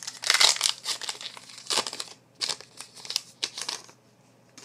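Wrapper of a trading-card pack being torn open and crinkled by hand: dense crackling for about two seconds, then a few separate short crinkles, stopping about four seconds in.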